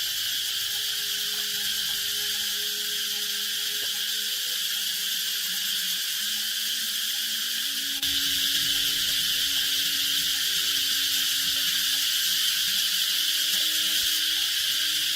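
Steady high-pitched insect chorus, stepping up in level about eight seconds in.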